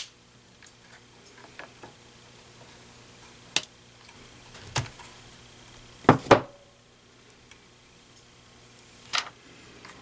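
Sharp, separate clicks and snaps of small wire cutters cutting and stripping a thin insulated wire lead, with light knocks of handling; the loudest is a quick pair about six seconds in.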